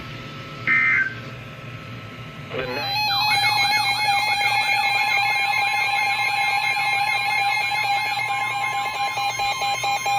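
Emergency Alert System broadcast tones. Near the start come two short buzzy data bursts. About two and a half seconds in, a loud, steady two-tone attention signal begins, with a rapidly repeating sweeping tone laid over it, signalling that a new warning follows.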